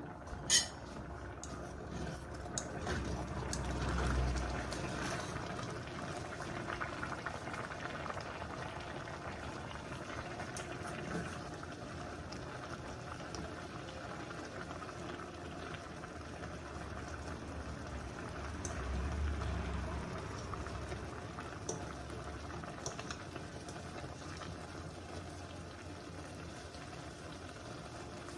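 Rice boiling in a pot of water: a steady bubbling, with a short sharp click just after the start and a low swell in loudness about four seconds in and again near twenty seconds.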